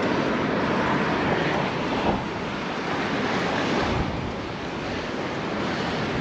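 Strong wind rushing over the microphone in a steady noisy roar, easing a little partway through, with the sea's surf blended into it.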